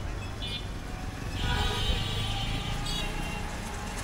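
Busy street traffic noise: a steady low rumble of passing auto-rickshaws and motorcycles, with a short high tone about half a second in and a longer one from about a second and a half to three seconds in.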